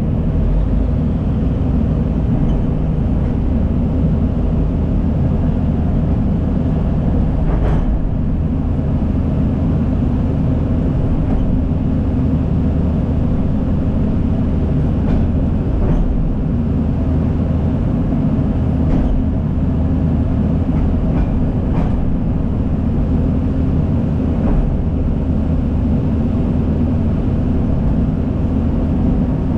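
Heavy diesel earthmoving machinery, a crawler dozer and excavator, running steadily under work, with a few sharp metallic clanks scattered through.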